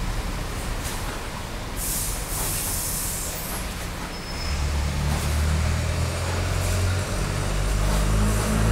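A heavy road vehicle's engine rumbling, growing louder in the second half, with a short hiss about two seconds in.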